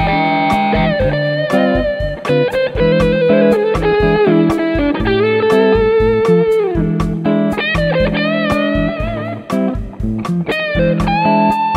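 Sqoe SEPRS 900 electric guitar with humbucker pickups playing a lead line, with bent notes sliding up in pitch and long held notes, over a backing track with a steady beat.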